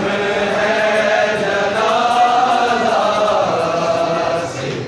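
A large crowd of men chanting together in long, drawn-out notes that rise and fall slowly in pitch, easing off briefly near the end.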